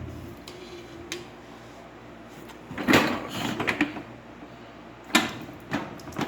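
Handling noise from work on a washing machine's drain hose: a few sharp clicks, a loud rattling, scraping patch about three seconds in, and a sharp knock near the end.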